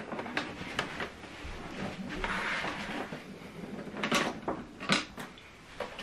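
Handling noise as a flat-screen TV is turned round on its stand on a table with cables around it: a few light knocks and clicks, and a rustling stretch in the middle.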